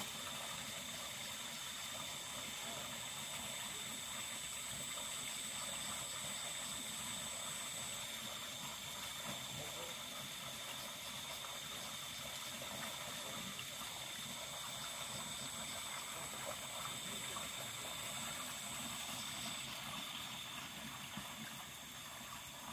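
Water running steadily in a shallow ditch, a soft even wash, with two thin steady high-pitched tones over it that stop and start again partway through.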